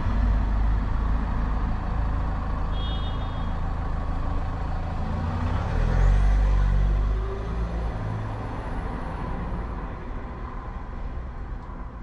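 Motor vehicle engine running in city road traffic, with a low rumble that swells to its loudest about six seconds in as the engine note rises, then eases off. A short high electronic beep sounds near three seconds in.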